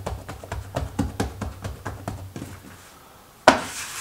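Fingertips pressing and patting yeast dough flat against a countertop: a quick run of soft taps, about four or five a second, that stops a little over two seconds in. About three and a half seconds in, one louder slap with a brief hiss as the flattened dough is laid down onto a stack of dough.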